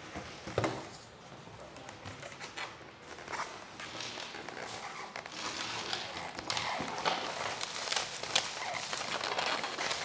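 Packaging wrap crinkling and rustling as it is pulled off an exhaust part, getting busier over the second half, with a single thump about half a second in.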